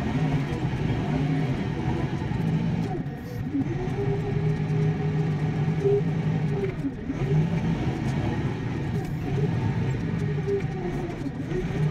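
Kioti compact tractor's diesel engine running steadily while plowing snow, with a higher whine that rises and falls in pitch twice.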